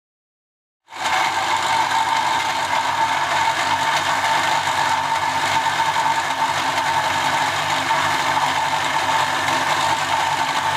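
Electric blender motor running steadily at speed, grinding garlic and ginger into a paste; it starts abruptly about a second in.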